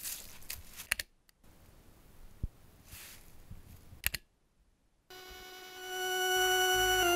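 Faint rustling and a few sharp clicks, then about five seconds in a single held musical note with many overtones enters and swells: the opening of the film's score.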